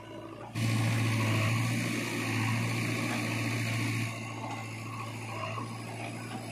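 JCB 3DX backhoe loader's four-cylinder diesel engine running. It gets sharply louder about half a second in, working under load with a high whine on top, then drops back to a lower steady run at about four seconds.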